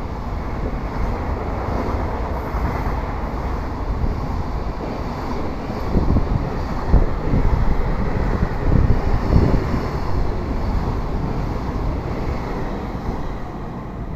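Container freight wagons rolling past on the rails, a steady rumble of wheels and running gear with a few louder low thumps about halfway through, easing a little as the end of the train goes by.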